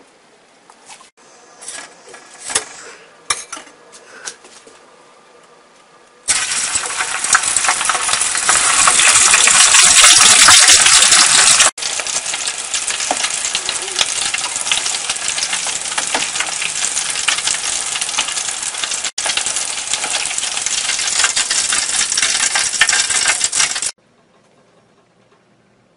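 Battered king prawns stuffed with bacon deep-frying in a pot of hot oil: loud, steady sizzling and bubbling that starts about a quarter of the way in, breaks off twice for an instant and stops shortly before the end. Before it, soft scattered clicks and rustles of gloved hands working a prawn on a cutting board.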